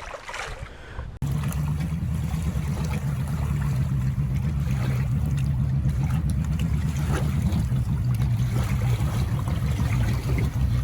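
Boat's outboard motor running steadily at speed, with water rushing along the hull; it starts abruptly about a second in.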